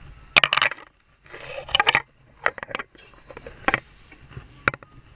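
Irregular sharp clicks and clatter of hard objects knocking: two short bursts of clatter in the first two seconds, then single clicks about once a second.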